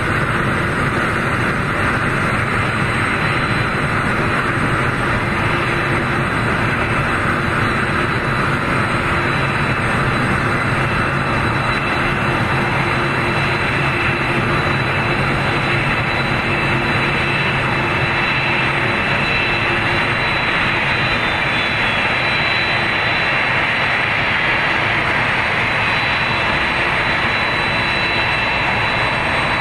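Boeing VC-25A (Air Force One, a modified 747-200B) taxiing, its four General Electric CF6 turbofan engines running at taxi power: a steady jet rush with a high whine over it.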